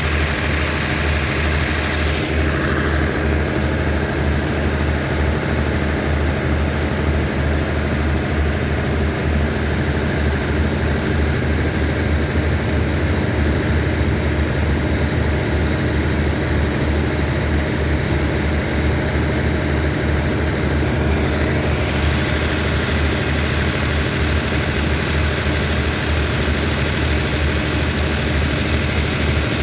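Diesel passenger train standing at a platform, its engine idling with a steady low hum.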